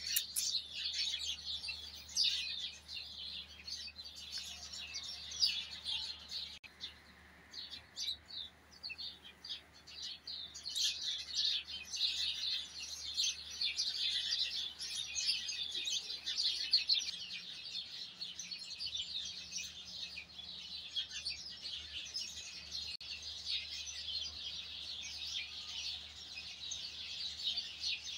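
Many small birds chirping and twittering at once, a dense, high, continuous chatter. It thins out about seven seconds in and fills in again around ten seconds.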